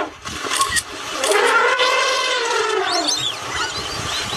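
An African elephant trumpets once, a long call that rises and then falls in pitch. A few short high chirps follow about three seconds in.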